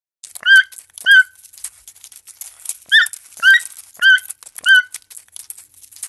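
A toucan calling: six short notes, two near the start and then four more about 0.6 s apart, each a quick rise and fall in pitch, over a faint crackling hiss.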